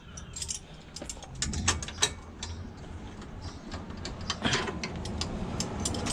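Ratchet wrench with a 13 mm socket clicking in short, irregular runs as it works a very tight bolt.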